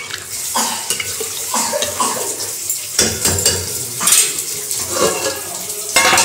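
A ladle stirring thin chana dal in an aluminium pan, scraping and knocking irregularly against the metal as the liquid sloshes, with a sharper metal knock near the end.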